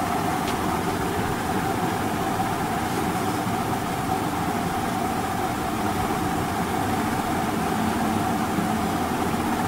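Steady background machine hum and hiss with one constant mid-pitched tone, level and unchanging.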